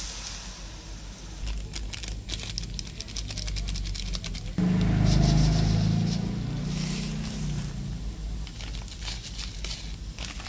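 Water being poured into a steel wok over fried spice paste, with metal spatula clicks and scrapes against the wok. The pouring gets louder about halfway through.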